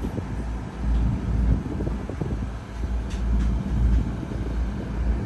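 Wind buffeting the microphone in uneven low gusts over the steady noise of a river tour boat under way.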